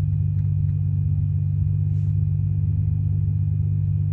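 A 40 Hz test tone played through a car subwoofer: a steady deep hum with strong overtones. The amplifier's input sits just above the roughly 2.5 V point where its output starts to distort.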